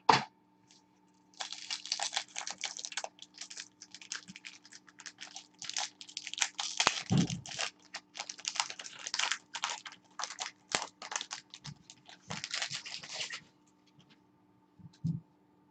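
Dense, irregular rustling, crinkling and clicking of trading-card packaging being torn open and cards handled, with a soft thump about seven seconds in.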